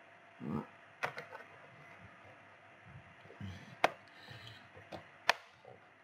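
Handling sounds of a plastic clamshell pack and a laptop RAM stick being fitted: three sharp plastic clicks, spread out, among quieter knocks and rustles.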